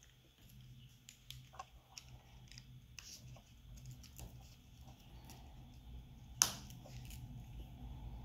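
Small clicks and taps of a precision screwdriver and tiny screws against a smartphone's frame as screws are set and driven in, with one louder click late on.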